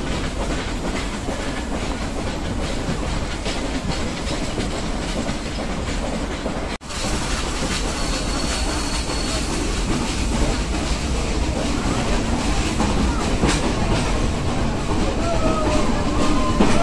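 Nilgiri Mountain Railway toy train running on its metre-gauge track: a steady rumble and clatter of the coach wheels on the rails, with a few short high wavering sounds near the end.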